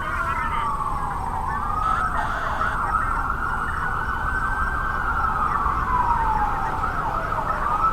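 Emergency vehicle siren in a slow wail: its pitch falls, climbs and holds, then falls and climbs again near the end.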